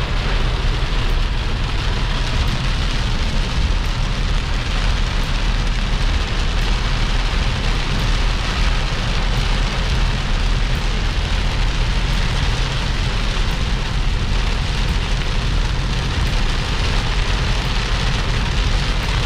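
Heavy rain falling steadily, with a constant deep rumble beneath it.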